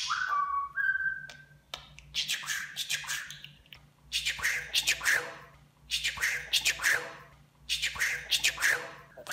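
Budgerigar chattering: two short clear whistles near the start, the second higher, then four scratchy warbling bursts about two seconds apart.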